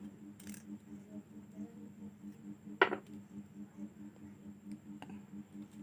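Metal blade pieces being handled and bent by hand: one sharp metallic clink about three seconds in and a few faint ticks, over a steady low hum.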